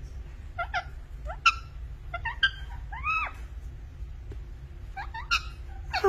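Albino Indian ringneck parakeet making a string of short squeaky chirps and chattering calls while it is being petted, about half a dozen separate calls, one of them a longer rising-and-falling note.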